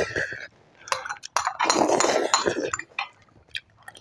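Noodles being slurped from glass bowls, once briefly at the start and again for over a second in the middle, with light clinks of chopsticks and spoons against the glass.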